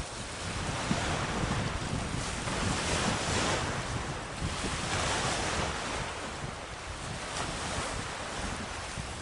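Wind buffeting the microphone outdoors, a rumbling rush that swells and eases in gusts every second or two.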